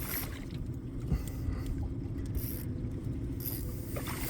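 Fishing reel being worked while a hooked smallmouth bass is fought toward the net: scraping and clicking over a steady low rumble of wind and water against the boat.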